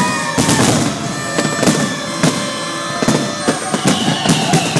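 Fireworks display: aerial shells bursting in a string of sharp bangs and crackles, with music playing behind.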